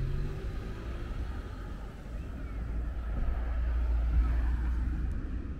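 Road traffic passing close by: car engine and tyre rumble, swelling about three to four seconds in as a car drives past.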